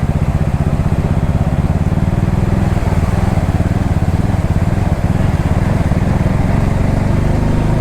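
Motorcycle engine running steadily under way, a dense even pulse with a haze of wind and road noise over it.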